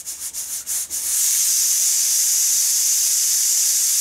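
Stovetop pressure cooker whistling: the weight valve sputters in quick puffs, then about a second in a loud steady jet of steam hisses out. This is the cooker's whistle, here counted as the second one that tells the lentils are done.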